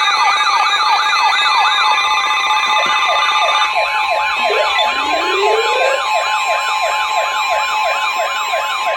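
Several electronic sirens sweeping rapidly up and down over one another, layered on steady alarm tones, one of them a high tone near 1 kHz held throughout. The sweeps are quicker in the first few seconds, and a single slower rising glide comes about halfway through.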